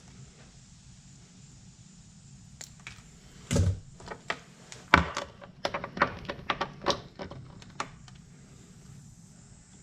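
Wire stripper working on thin wires: a run of sharp clicks and snips from about three and a half seconds in, the loudest two near the start of the run, and the last a little before the end.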